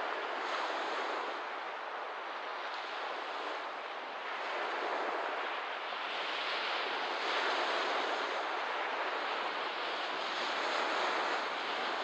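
Small waves washing against a lakeshore: a steady rushing of water that swells and eases every few seconds.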